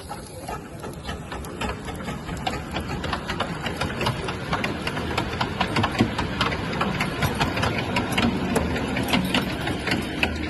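A small model engine running with a rapid clatter of clicks and knocks, getting gradually louder.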